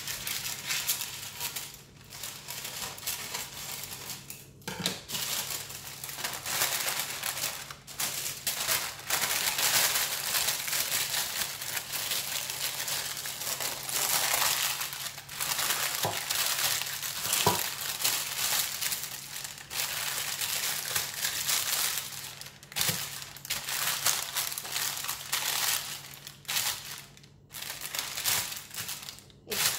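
Baking paper crinkling and rustling as it is cut with scissors and then folded and pressed into a metal loaf tin, in uneven bursts with short pauses.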